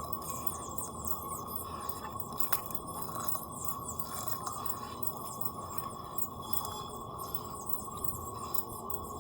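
Dry sand crumbling and dissolving in water, a fine continuous crackling fizz with a sharp click about two and a half seconds in.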